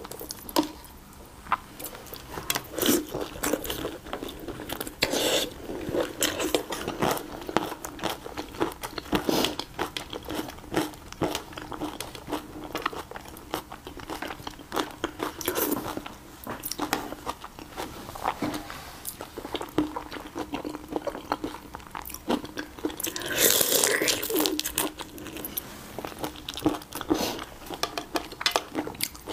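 Close-miked eating of raw chili-marinated shrimp: shells crackling as they are peeled by hand, and chewing. It comes as a steady run of small clicks and crunches, with a longer, louder spell of noise about three-quarters of the way through.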